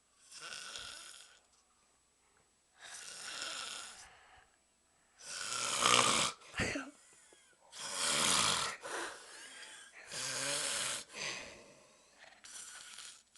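A man snoring loudly, a pig-like snore on each breath, coming about every two to three seconds with quiet gaps between. The loudest snore is about six seconds in.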